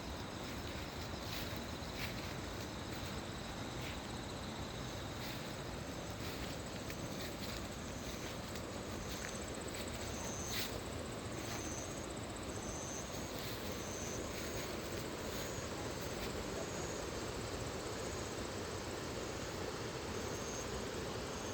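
Mountain valley stream rushing steadily, with an insect calling in short, high chirps about once a second through the second half.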